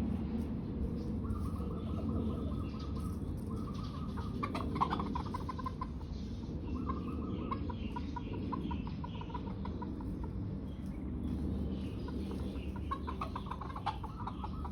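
Bantam chickens calling: three drawn-out, level crowing notes, each about a second long, mixed with runs of rapid clucking, the longest in the middle and another near the end.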